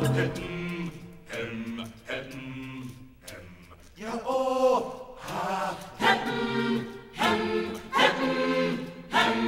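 Background music of a choir of voices singing a chant-like song, in repeated phrases.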